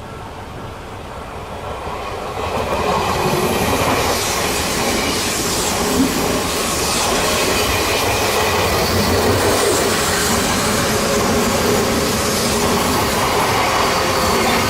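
An Odakyu electric train passing over a level crossing: the rail noise builds over the first three seconds, then the wheels run on steadily over the rails, with one brief sharp knock about six seconds in.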